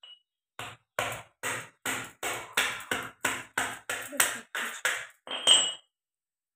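Raw crab being pounded with a small pestle to crack its shell: a quick run of about fifteen sharp knocks, roughly three a second, the last and loudest with a brief metallic ring.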